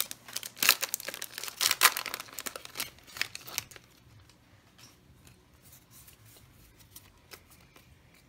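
Foil Pokémon booster pack being torn open and crinkled, a crackly run of rustling for the first three and a half seconds. After that it goes much quieter, with only a few faint ticks as the cards are handled.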